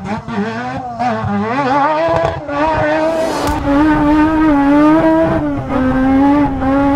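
Rotary engine of a Mazda stadium race truck screaming at high revs as it is driven flat out, its pitch rising and dipping with the throttle for the first couple of seconds, then held high and nearly steady.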